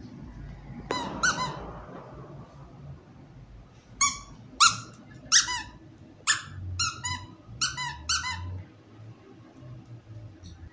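Rubber squeaky dog toy squeaking in short, sharp, high-pitched squeaks: a pair about a second in, then after a pause a quick run of about eight more.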